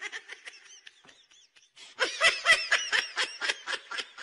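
A person laughing: faint high-pitched giggles at first, breaking into louder, rapid laughter about halfway through.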